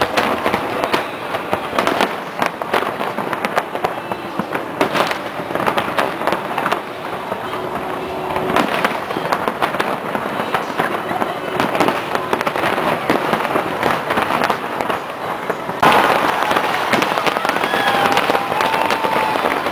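Aerial fireworks display going off without a break: a dense run of bangs and crackling, growing louder about three-quarters of the way through.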